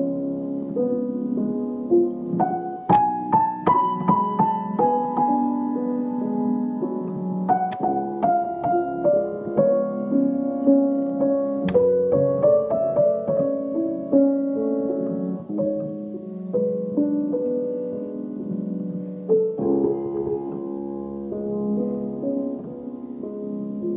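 Piano played by hand: a slow, melodic piece of held chords and single notes, with a few harder-struck notes standing out along the way.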